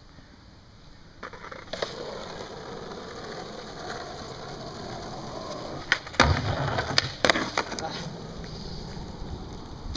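Skateboard wheels rolling on asphalt, then several sharp clacks of the board hitting the ground between about six and eight seconds in, the loudest near six seconds.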